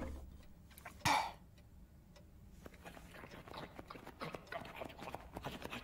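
A single sharp knock, then faint, quick tapping that grows gradually louder.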